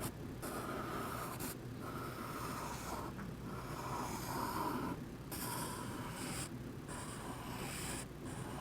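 Pencil scratching on drawing-pad paper as a cloud's scalloped outline is drawn, in about six strokes, each a second or two long, with short pauses between them.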